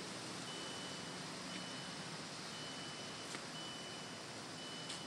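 Car warning chime from a sedan with its door open: a steady high beep repeating about once a second, with a few faint clicks in between.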